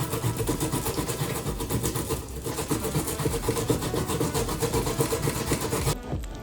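Cocoyam (taro) being grated: a fast, steady, even rasping that stops suddenly near the end.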